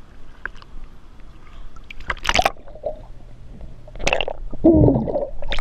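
Water splashing and sloshing in a few separate bursts, the loudest near the end.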